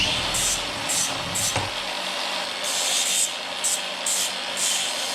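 A power tool's motor hum that stops about a second and a half in, under a run of short, repeated scraping strokes, roughly two a second, like filing or rubbing on a hard surface.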